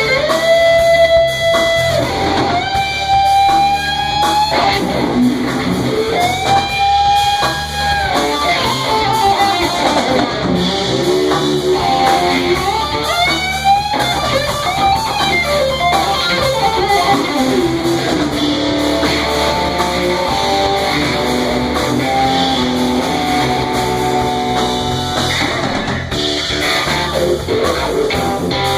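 Electric guitar playing a lead line, with long held notes that are bent and shaken in pitch, then a quick rising run near the middle followed by faster phrases.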